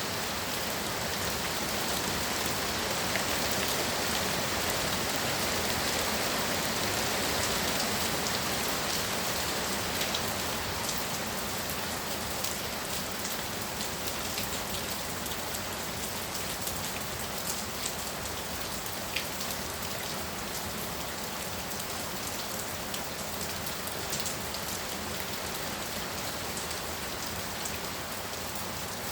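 Heavy rain pouring steadily, with the patter of drops hitting a surface. Slightly heavier in the first third, with scattered sharper drop ticks throughout.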